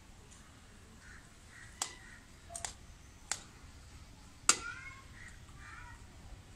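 A steel spoon clinking sharply against a steel bowl of cooked rice about five times; the loudest clink comes about four and a half seconds in and rings briefly. Faint bird calls come in between the clinks.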